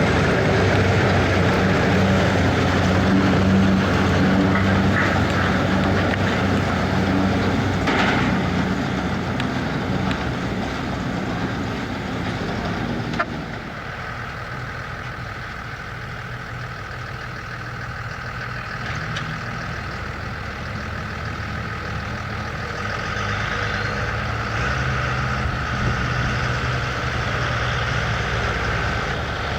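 Fendt tractor engine running steadily with a trailed potato harvester working behind it. About halfway through a sharp click, after which the sound is quieter and a higher steady whine comes in.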